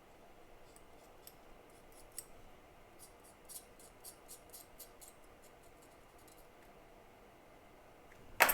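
Faint, light clicks and ticks from small metal hand tools working on a circuit board, in an irregular string of a dozen or so. One louder sharp knock comes near the end.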